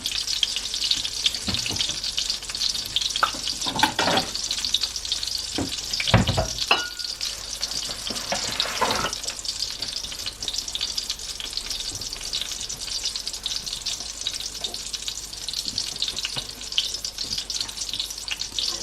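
Oil sizzling steadily around eggplant omelettes shallow-frying in a pan on medium heat. In the first half there are several sharp knocks and scrapes of a utensil against the pan, the loudest about six seconds in.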